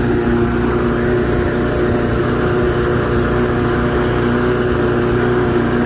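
8.5 hp Briggs & Stratton power-washer engine on a homemade push mower running steadily under load while cutting grass, a loud even engine note with no change in speed.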